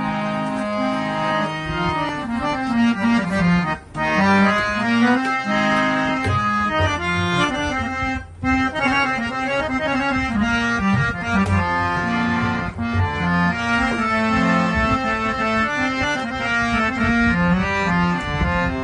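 A Rina harmonium with two banks of reeds and a bass coupler playing a melody over sustained chords, with tabla accompaniment. The sound breaks off briefly twice, about four and eight seconds in.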